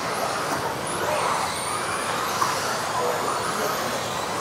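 Several electric 1:10 off-road RC buggies racing, their motors whining high in pitch, rising and falling as they speed up and slow down. A single sharp knock is heard about halfway through.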